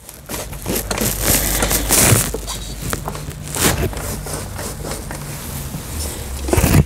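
Clattering and rubbing of plastic and metal parts as a disassembled Brother CS6000i sewing machine and its loose plastic housing are handled, irregular and continuous.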